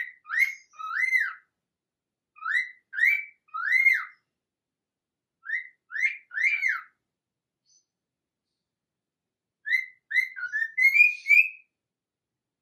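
Pet parrot whistling: four short phrases of two or three clear notes, each note rising and falling in pitch, with pauses between phrases. The last phrase, near the end, is longer and ends on a quick upward run of notes.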